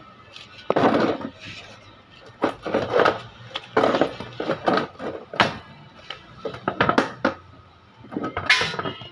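A dozen or so irregular knocks and short scraping clatters, with faint music underneath.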